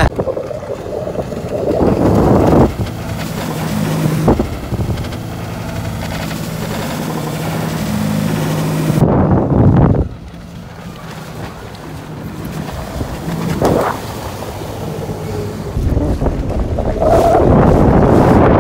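Sea-Doo jet ski engine running with a steady hum. Water splashes and slaps against the hull, loudest a couple of seconds in, around the middle and near the end, with wind buffeting the microphone.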